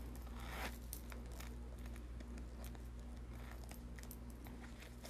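Faint handling of a black leather zip-around wallet: scattered small clicks and a brief rustle about half a second in, as coins and cards shift inside, over a steady faint hum.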